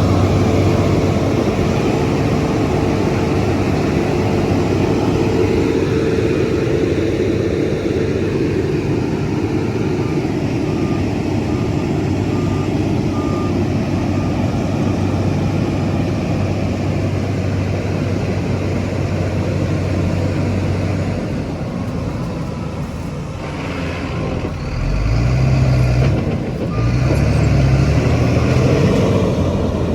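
Heavy diesel earthmoving machinery running steadily, with a reversing alarm sounding a short run of regular beeps about eleven seconds in and again near the end. Around twenty-five seconds in, a deep engine note comes in louder as an engine works harder.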